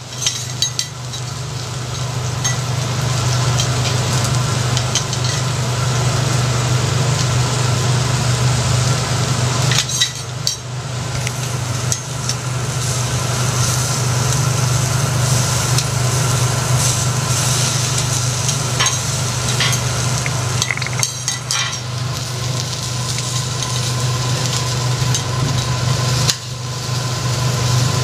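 Kuruma prawns sizzling steadily on a hot teppanyaki steel griddle, over a steady low hum. Metal spatulas click and scrape on the plate now and then, busiest about ten seconds in, past the middle and near the end.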